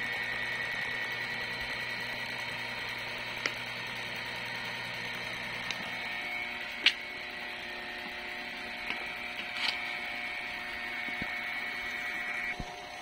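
Belt-driven car-wash pressure washer pump and its electric motor running steadily: a low hum with a high whine. The tone changes about six seconds in, a few sharp clicks sound over it, and the whine cuts off just before the end.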